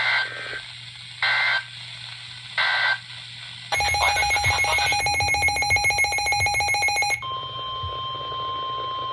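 NOAA Weather Radio emergency alert signalling: three short bursts of SAME digital data tones about a second apart. About three and a half seconds in comes a harsh, rapidly pulsing alert sound lasting about three seconds, and for the last two seconds a steady single-pitch warning alarm tone, the signal that a new warning is starting.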